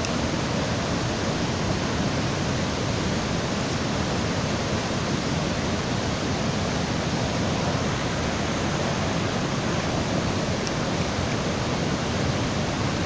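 Water rushing steadily down a small waterfall, an even hiss with no breaks.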